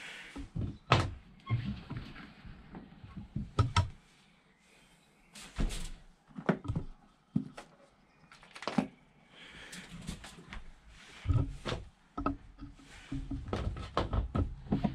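Irregular knocks, clicks and rustling from hands working rubber and blue silicone hoses and a pair of pliers against a motorcycle's frame.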